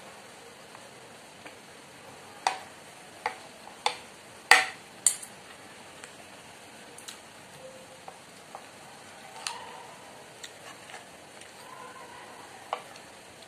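Metal spoon and fork clinking and scraping against a ceramic plate while eating. There is a cluster of sharp clinks a few seconds in, the loudest near the middle, then a few scattered ones later, over a steady faint hiss.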